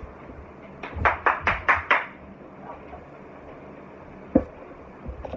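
Five loud, sharp knocks in quick succession over about a second, then a single sharp knock a few seconds later.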